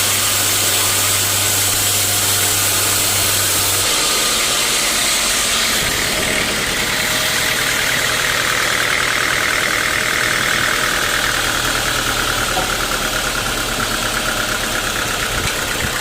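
Sawmill machinery running loudly and steadily, its low hum changing about four seconds in.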